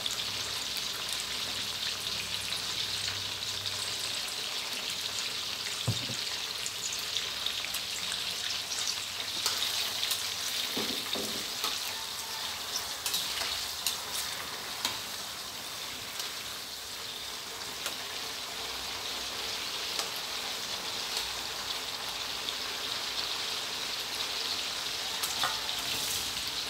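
Isan fermented pork sausages deep-frying in a wok of hot oil: a steady sizzle with scattered pops and crackles. About halfway through, a spatula stirs and scrapes the sausages in the wok.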